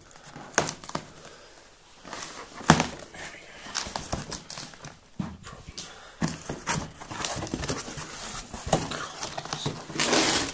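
A taped, plastic-wrapped cardboard parcel being cut and torn open by hand: irregular crinkling of plastic, tearing of packing tape and rustling of cardboard. A longer, louder rustle comes near the end as the box is pulled open.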